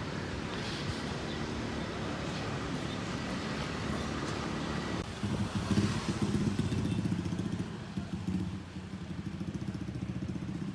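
A small engine running, with a low pulsing rumble that gets louder and changes note about five seconds in.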